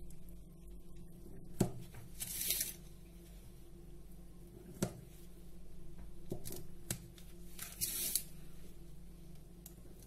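Kitchen scissors snipping through soft yeast dough, a few separate cuts with sharp clicks of the blades and two brief rustling snips. A low steady hum runs underneath.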